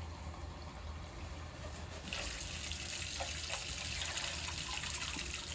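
Kitchen knife drawn through grainy semolina dough in a foil tray, scoring the cutting lines: a gritty scraping hiss that grows louder about two seconds in.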